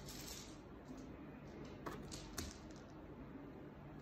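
Quiet handling sounds of cards and a black cloth pouch: a few soft taps and rustles, clustered about two seconds in, over faint room tone.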